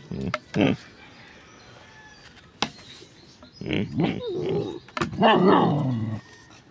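A dog making short vocal sounds: a couple of brief ones at the start, then two longer pitched ones with falling pitch a few seconds in, after a quiet stretch.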